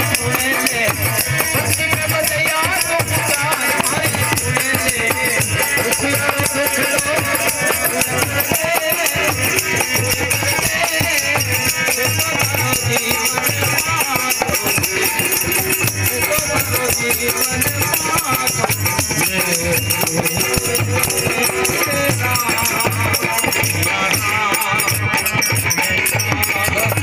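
Live devotional folk music: a dholak beating a steady, even rhythm, a harmonium playing the melody, and a bright jingling percussion running throughout, with a man's singing voice at times.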